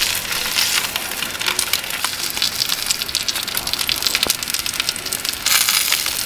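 Steak fat caps sizzling as they sear in hot avocado oil in carbon steel and cast iron skillets: a steady, dense crackle of spitting fat that swells louder about five and a half seconds in.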